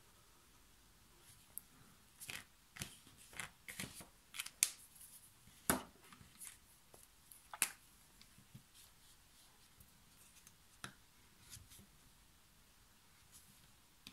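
Sharp plastic clicks and taps of Ecoline brush-pen caps coming off and snapping on and of the markers being set down on the table. There is a quick cluster of them between about two and eight seconds in, then a few scattered ones.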